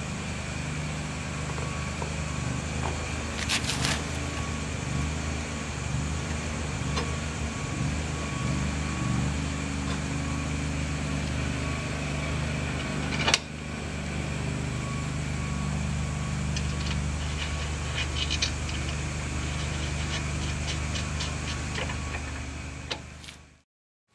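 A steady low mechanical hum, like an engine running, with scattered light metal clinks and one sharp knock about halfway through as an aluminium push bar is fitted to a pickup's front brackets.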